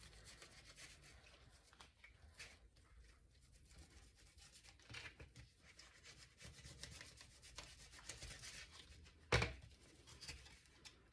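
Faint rubbing and scraping of a knife cutting through a perch, filleting the meat off the fish, with small scattered clicks and one sharper knock about nine seconds in.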